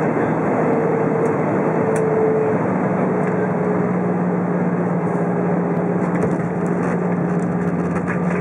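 Inside the cabin of an Airbus A320 with its engines running: a steady rush of engine and air noise, with a faint tone that slides slightly lower in the first few seconds and a low hum that comes in about three seconds in.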